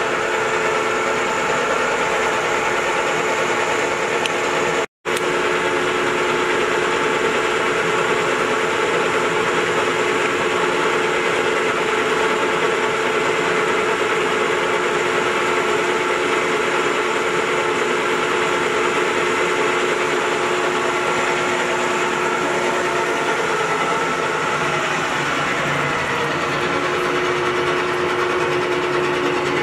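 Clausing-Metosa 24-inch engine lathe running with its spindle and chuck turning: a steady machine whir with several steady tones through it. It drops out for an instant about five seconds in.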